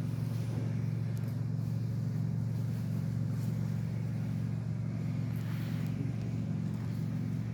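A steady, unchanging low mechanical hum, like a motor or engine running.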